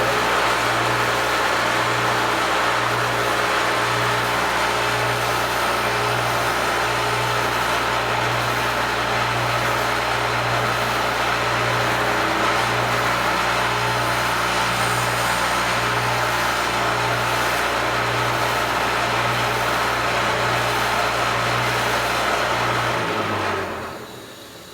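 Foley Belsaw Sharp All electric sharpening machine running steadily, its grinding wheel working a blade edge, with a steady motor hum under an even grinding noise. It is switched off near the end and the sound falls away.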